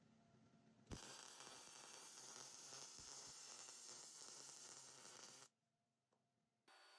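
Faint hiss of an electric arc on steel with a fine crackle, starting with a click about a second in and cutting off suddenly after about four and a half seconds; a fainter hiss picks up again near the end.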